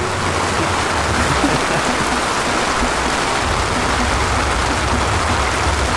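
Wind and rain of a squall: a steady, loud rushing noise, with wind rumbling on the microphone.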